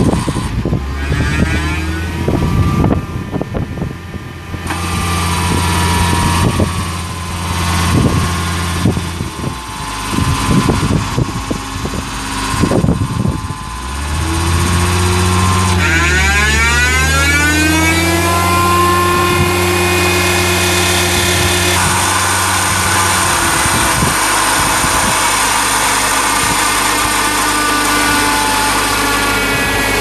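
Tracked skid steer's engine running, with scattered clunks early on. About halfway through it speeds up with a rising whine, then runs steadily at the higher speed.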